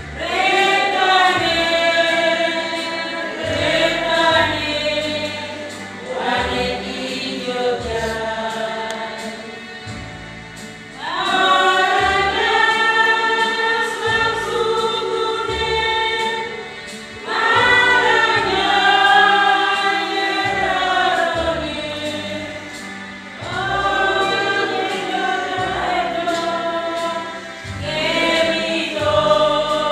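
Church choir singing in the Kayu Batu language, in long held phrases with short breaks between lines.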